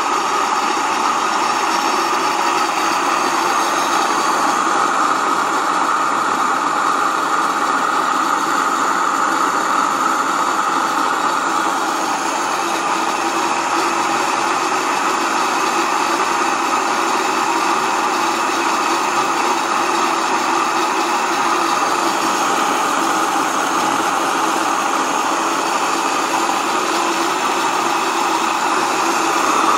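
Waldner BioTech Single electric grain mill running steadily, grinding rice into flour.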